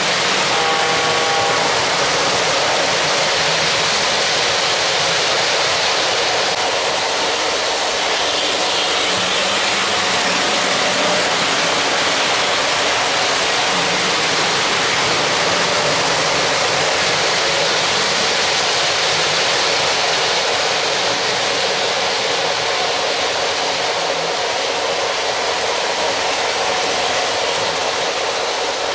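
3-rail O-gauge model passenger train with silver streamlined cars rolling along the track: a steady rush of wheels on rails. A brief chord-like tone sounds about a second in, and the sound eases slightly near the end.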